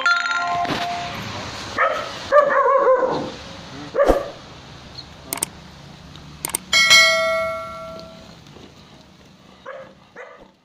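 A large mastiff-type dog barking a few deep barks in the first half. About seven seconds in there are two clicks and a ringing chime that fades out over a second or two, from a subscribe-button and bell animation.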